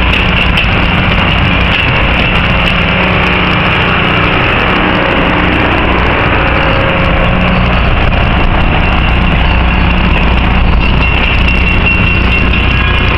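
Passenger cars of a steam-hauled excursion train rolling past at close range: a loud, steady rumble of steel wheels on rail.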